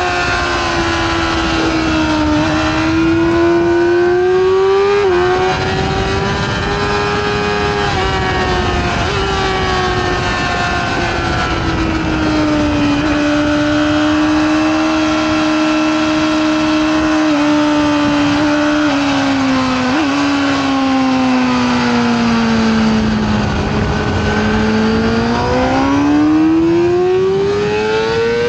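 Yamaha R6 inline-four sport-bike engine heard from on board at track speed, its note falling and rising with the throttle through corners, with wind rushing past. A short sharp blip comes about two-thirds through, and the engine climbs steadily in pitch over the last few seconds.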